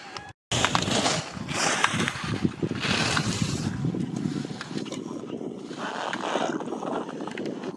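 Voices of a crowd of people talking and calling out, swelling and fading, with wind on the microphone.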